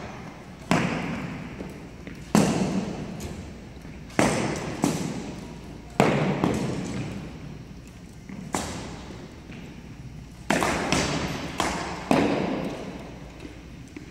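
Arrows being shot along a line of archers and striking foam block targets: about a dozen sharp thuds at uneven intervals, each ringing on in the echo of a large gym.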